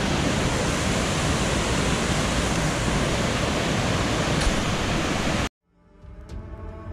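Carénage waterfall, a river in full flow, rushing over rocks in a loud, steady rush of water. It cuts off suddenly about five and a half seconds in, and soft music fades in.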